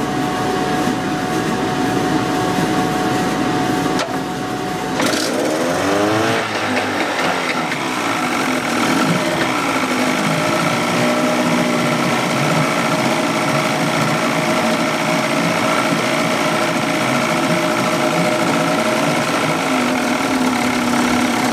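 Two-stroke outboard motor running with its cowling off. About five seconds in its speed drops and picks up again as the throttle grip is worked, and it then runs steadily.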